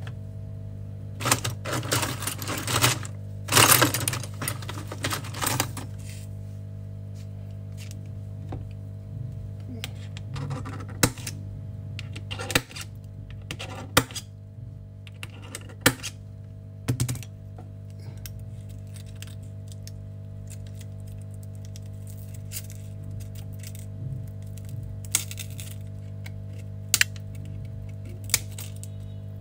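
Metal tweezers clicking and scraping against shattered back glass on an iPhone 12 mini's frame, with a dense run of scraping and clinking in the first few seconds and single sharp clicks scattered after. A steady low hum runs underneath.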